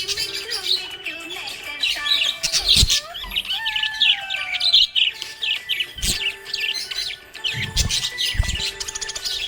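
Budgerigars chirping and warbling in a rapid, continuous chatter of short high notes, with a few dull low thumps.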